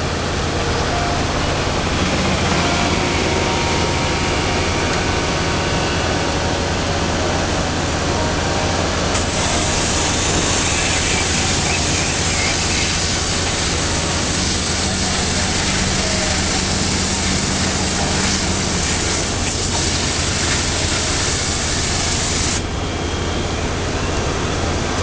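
Heavy machinery running steadily with a low hum. From about nine seconds in, a jet of fluid sprays hissing from the HDD drill pipe, and the hiss cuts off suddenly near the end.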